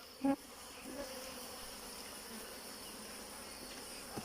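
Steady buzzing of African honeybees around their hive, with one brief, louder voice-like sound just after the start.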